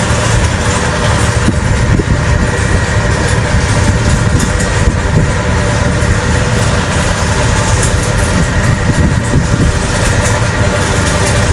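Diesel engine of heavy construction machinery running steadily under load as workers pull a support pile out of the ground.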